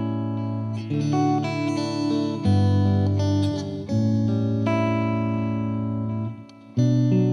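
Background instrumental music: held, plucked-string-like chords that change every second or so, dipping out briefly near the end.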